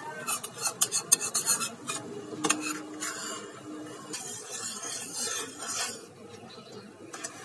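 Stainless steel spoon stirring thick simmering milk in a steel pot, scraping and clinking against the pot's sides and bottom as the cream stuck to the sides is scraped back in. The clicks are busiest in the first couple of seconds, then the scraping goes softer.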